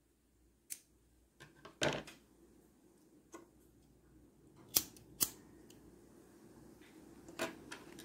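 Scissors cutting crochet yarn amid light handling: a scattering of short snips and clicks, loudest about two seconds in.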